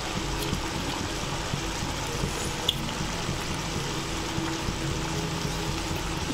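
Thick chickpea curry simmering in a pan while a metal ladle stirs it, with a few light clicks of the ladle against the pan over a steady low hum.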